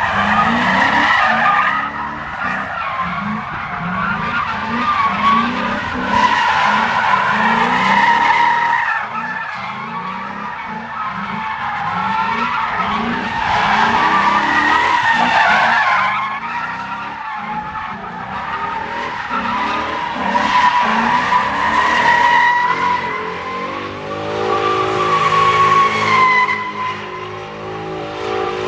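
A car doing donuts on asphalt: tyres squealing with a wavering high screech over an engine held at high revs, the whole sound swelling and fading as the car circles.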